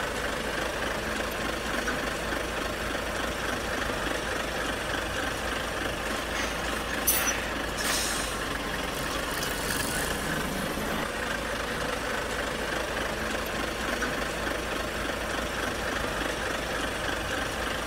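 Large engine running steadily, with two brief hisses about seven and eight seconds in.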